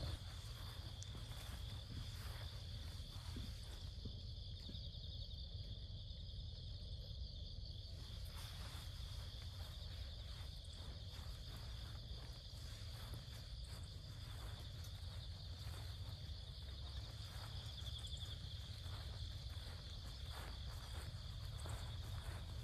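Insects chirring steadily in one continuous high-pitched band, over a steady low rumble and faint scattered clicks.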